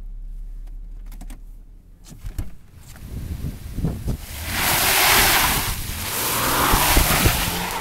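Wind rushing across the microphone, loudest in gusts from a little past halfway, with scattered low thumps of handling.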